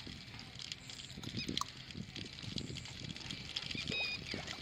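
Diesel glugging and splashing from a plastic bottle into a tractor's fuel tank filler neck, an irregular patter of small splashes.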